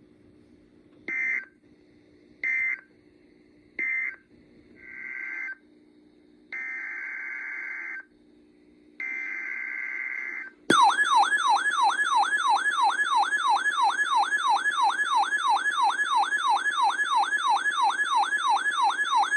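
Emergency Alert System data tones: three short buzzy bursts of SAME digital code, about a second apart, that end one alert, then three longer header bursts that begin the next. After them a loud alert tone warbles rapidly up and down, about three sweeps a second.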